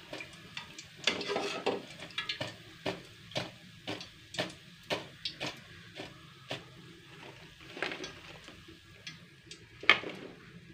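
Metal slotted skimmer clinking and scraping against the rim of a steel karahi as fried pakoras are lifted out of hot oil and shaken to drain, with sharp clinks about twice a second through the middle. The oil sizzles faintly underneath.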